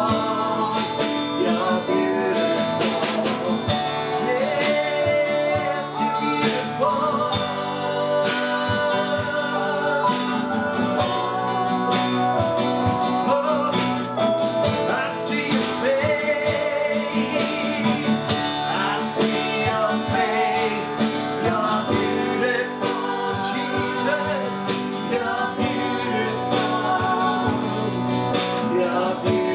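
Worship song: voices singing over guitar accompaniment.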